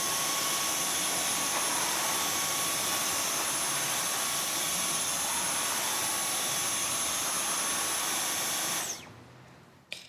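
Dyson V11 cordless stick vacuum cleaner running steadily, a rushing suction noise with a steady high whine over it. It is switched off a little before the end and dies away over about a second.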